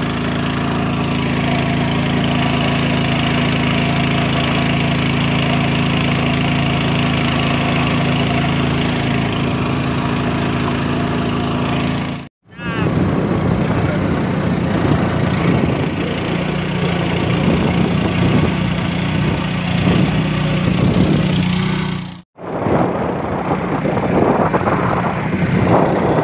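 Small wooden motorboat's engine running steadily under way. The sound drops out twice, briefly, about halfway through and near the end.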